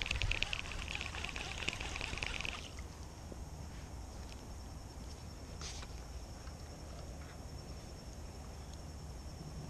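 Rapid high buzzing that cuts off abruptly about two and a half seconds in, followed by a steady high trill of crickets over a low rumble.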